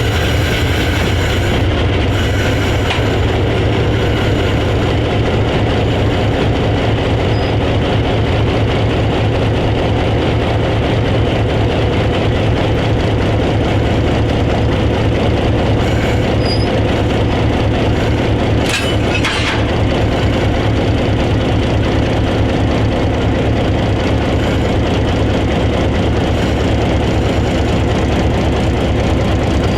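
Vintage diesel switcher locomotives running with a steady, loud, low engine drone. A short burst of hiss comes about two-thirds of the way through.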